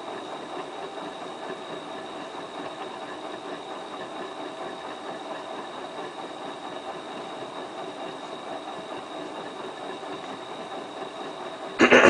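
Hotpoint Ultima WT960 washing machine running its wool-cycle wash, the drum turning with a steady mechanical rumble. A loud, short knock-like sound comes near the end.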